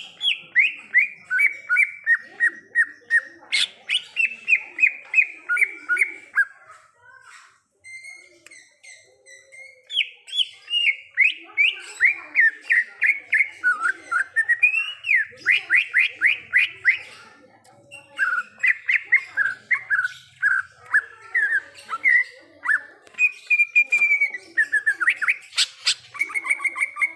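Green leafbird (cucak ijo) singing: long, rapid runs of short, sweeping whistled notes, about five or six a second, in three bouts with a brief pause after the first. Two sharp clicks cut in, one early on and one near the end.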